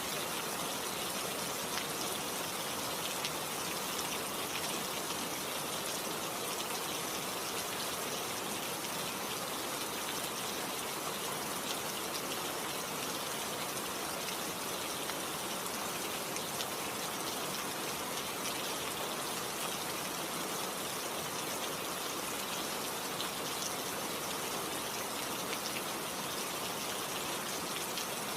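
Steady rain falling, a dense even hiss of drops with fine patters, unchanging throughout.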